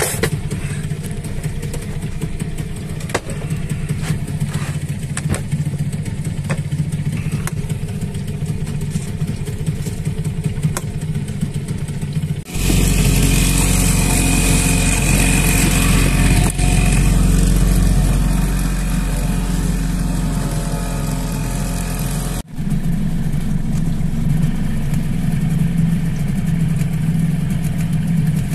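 Tohatsu outboard motor running steadily, pushing the sailboat along under power. For about ten seconds in the middle it is much louder and closer, with a rushing hiss over it.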